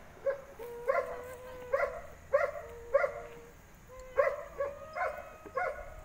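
An animal barking repeatedly: about nine short, sharp barks spaced half a second to a second apart, with faint held tones between them.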